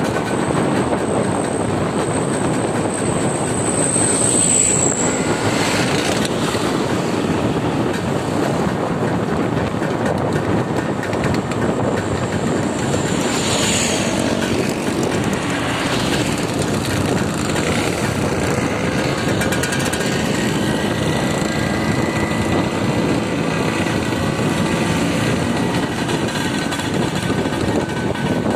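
A road vehicle driving steadily, with continuous engine and road noise and a faint high whine that comes and goes.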